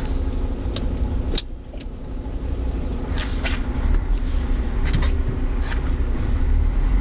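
Sisu truck's diesel engine and drivetrain rumbling steadily, heard from inside the cab. About a second and a half in, a sharp click comes just before the rumble drops suddenly, and it then builds back over the following seconds. Short rattles and squeaks from the cab come and go.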